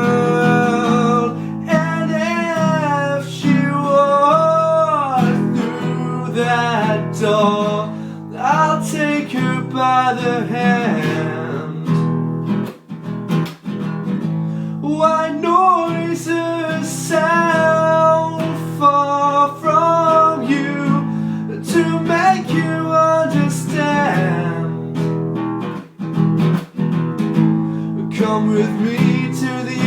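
Acoustic guitar strummed and picked, with a voice singing a gliding melody over it, stopping briefly twice.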